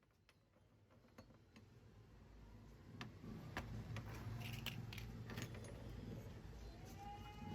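Light metallic clinks and clicks, like small metal pieces being handled, scattered over a low hum that grows louder a few seconds in.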